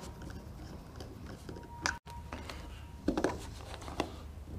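Faint, scattered small clicks and rustles of hands working stranded wires into the switch terminals of a plastic hoist control pendant, with a slightly louder handling noise about three seconds in.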